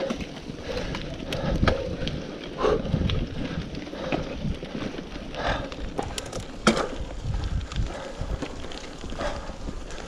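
Mountain bike riding over a bumpy, leaf-covered dirt trail: tyres rolling and crunching, the bike and its handlebar-mounted camera rattling, with irregular sharp knocks over bumps. The loudest knock comes about two-thirds of the way in.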